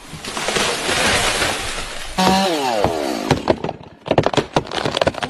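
A tree coming down and wood breaking. There is a loud rushing noise, then a whistle falling in pitch about two seconds in, then a quick run of sharp cracks and snaps near the end.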